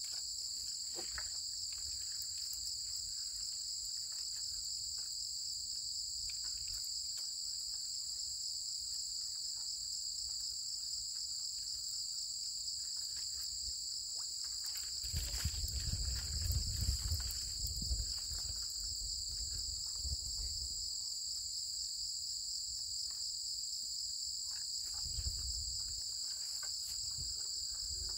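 Steady high-pitched chorus of crickets trilling without a break. A low rumble rises about halfway through for a few seconds, with a shorter one near the end.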